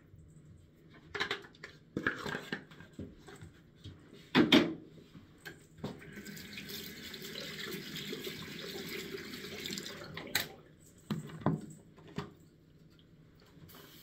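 Knocks and clatter of objects being handled, loudest about four and a half seconds in. Then a steady hiss for about four seconds, followed by a few more knocks.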